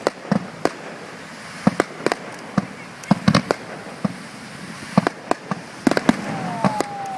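Aerial fireworks display: a rapid, irregular series of sharp bangs and cracks from bursting shells over a steady hiss.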